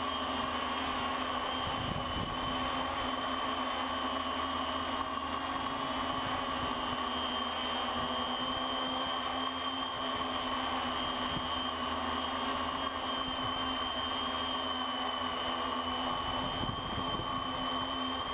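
Multirotor drone's electric motors and propellers whining steadily in flight, several fixed pitches layered together.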